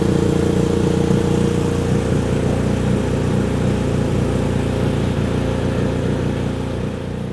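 BMW R1250 RT's boxer-twin engine idling steadily, freshly started on a newly fitted lithium battery.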